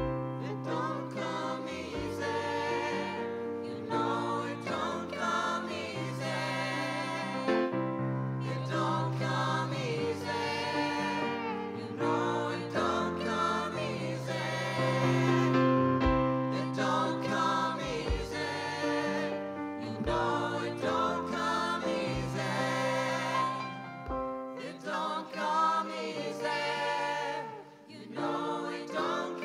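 Live band music: voices singing together over sustained bass notes that change every second or two, with keyboard accompaniment.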